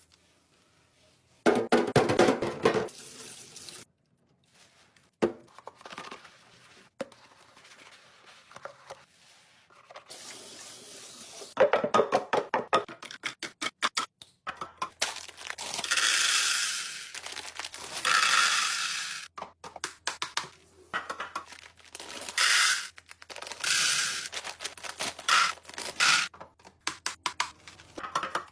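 Restock handling sounds: plastic packaging rustling and tearing, and items clicking and tapping as they are handled and set down, in a string of short separate bursts with brief pauses.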